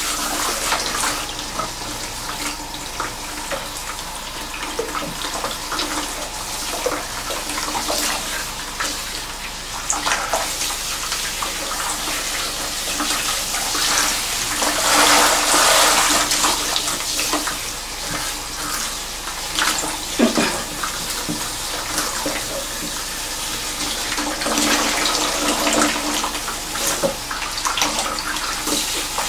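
A handheld salon shower sprayer runs a steady stream of water through thick, wet, tightly curled hair, and the water splashes into the backwash basin. The spray is loudest about halfway through, and one sharp knock comes about two-thirds of the way in.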